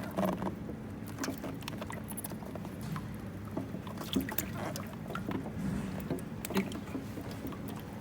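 Rustling and scattered light clicks and knocks of hands opening and handling a container of hatching caiman eggs.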